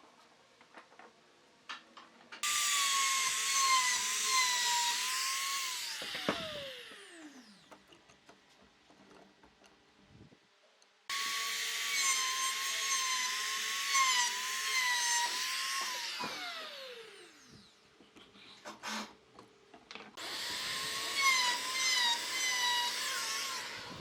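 An electric power tool working wood, run three times for about four seconds each. Each time its motor starts at full speed, and after the first two runs it is switched off and winds down with a falling whine.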